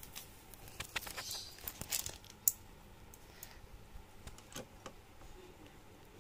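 Scattered light clicks and taps of a hand screwdriver and small metal screws being handled against a plastic TV stand leg, a few sharper ticks about one to two and a half seconds in.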